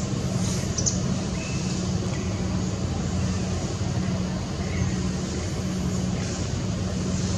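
Steady low hum of motor traffic.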